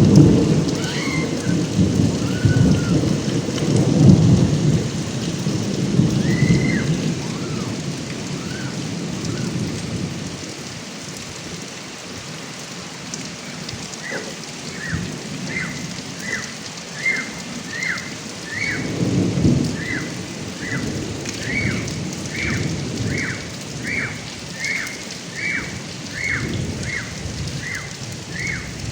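Steady heavy rain falling on a gutter spout during a thunderstorm. Thunder cracks right at the start and rolls on for several seconds, and a second rumble comes about two-thirds of the way through. From about halfway, an animal's short chirps repeat about twice a second over the rain.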